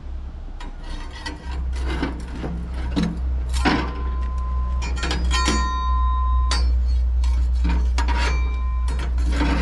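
Repeated scraping and rubbing strokes on a charcoal grill, with two short squeals, one around five seconds in and one near the end, over a steady low rumble.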